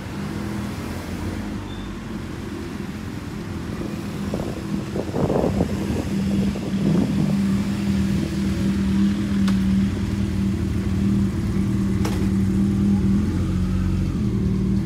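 A motor vehicle's engine running close by, a steady low hum that grows louder about five seconds in.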